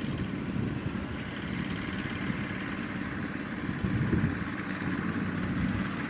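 Kubota ZT155 single-cylinder diesel engine of a two-wheel walking tractor chugging steadily as it tows a trailer loaded with rice sacks.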